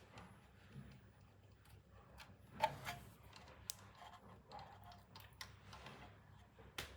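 Faint, scattered light clicks and taps of hand work on small parts, with a sharper click about two and a half seconds in and a few more later.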